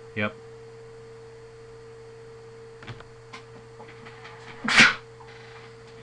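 A person's short, forceful burst of breath near the end, the loudest sound here, over a steady electrical hum, with a few light clicks before it.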